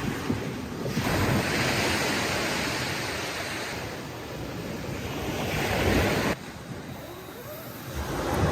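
Sea waves washing onto the shore, the rush swelling and falling back in surges; the sound changes abruptly about a second in and again about six seconds in.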